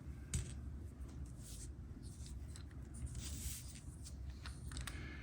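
Faint scraping and a few small clicks of fingers handling a small aluminium light meter and its battery-compartment parts on a desk.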